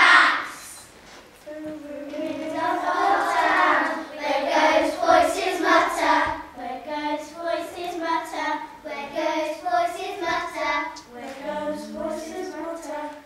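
A group of children singing lines of verse together, picking up after a short pause.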